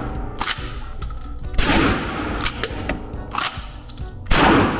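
Benelli Supernova pump-action shotgun fired twice, about 1.5 seconds in and again near the end, each blast ringing briefly off the walls of an indoor range booth.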